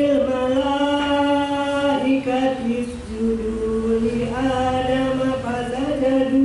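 A woman's voice reciting the Quran in a slow melodic chant, drawing vowels out on long held notes. The pitch drops after about two seconds and steps back up a little after the middle.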